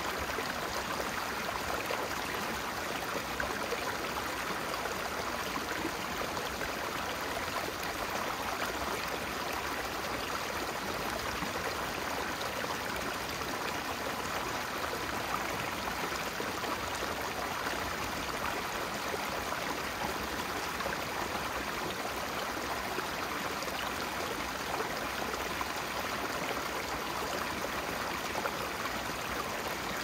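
Stream running over moss-covered rocks: a steady, even rush of water.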